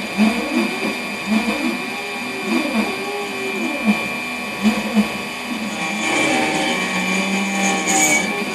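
A high-speed CNC machine running: a steady high whine, with repeated rising-and-falling sweeps in pitch about once a second as the machine moves back and forth. The sweeps give way to steadier tones near the end.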